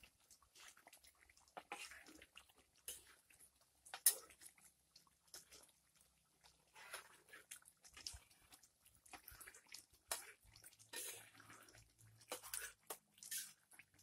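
Thick chicken curry sauce bubbling in a wok over a wood fire: faint, irregular pops and spits, with one sharper click about four seconds in.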